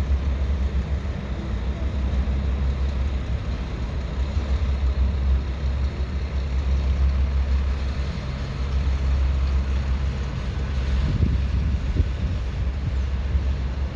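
Scania R420 truck's straight-six diesel idling, with a steady deep exhaust note and a brief change in the engine sound about eleven seconds in.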